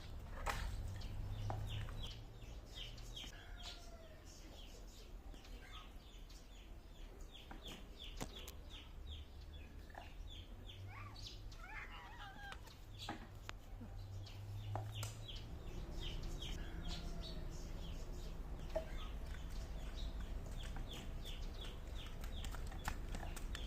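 Birds chirping in quick, repeated short calls throughout, with chickens clucking among them.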